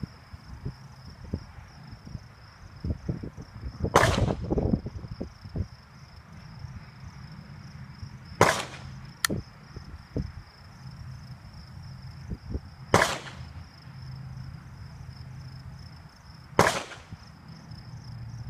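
Four single shots from a Ruger 10/22 .22 rimfire semi-automatic rifle, each a sharp crack, spaced about four seconds apart. Insects trill steadily in the background.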